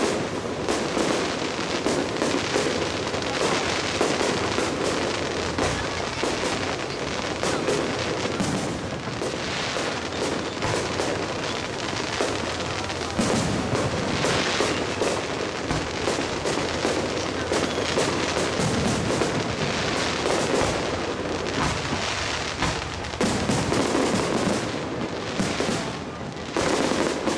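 Fireworks display: aerial shells bursting in a continuous barrage of bangs and crackles, with no pause.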